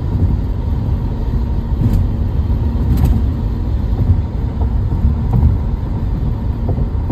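Tyre and road noise inside a Tesla Model 3's cabin at highway speed: a steady low rumble, with no engine sound since the car is electric.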